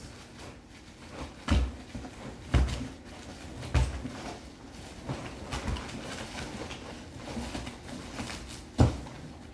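A utility knife cutting open the wrapping on a part inside a cardboard box, with packing paper rustling and a few sharp knocks against the box.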